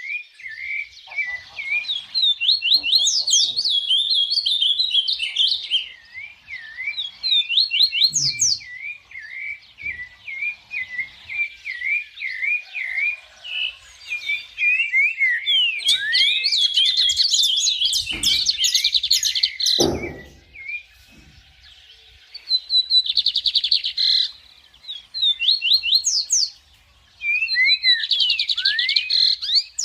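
Dawn chorus of several birds chirping and singing over one another, in dense bursts of quick chirps and trills with short lulls.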